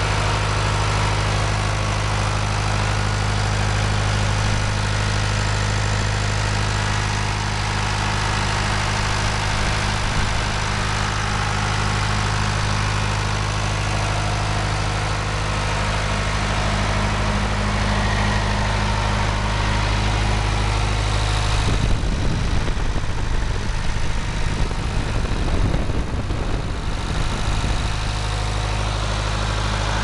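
Wood chipper's engine idling steadily at an even speed. For a few seconds near the end, an irregular rumble and buffeting is heard over it.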